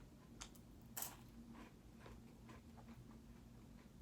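Near silence with a few faint clicks and ticks from eating wafer cookies, the clearest about a second in.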